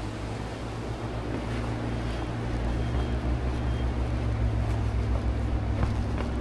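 Steady rushing noise with a strong low rumble and a hiss over it, growing louder about two and a half seconds in, with a few faint ticks.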